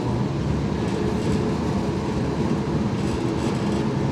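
Engine of a Dodge M37 military truck wrecker running steadily as it drives slowly off-road, heard from inside the cab, with a few light rattles.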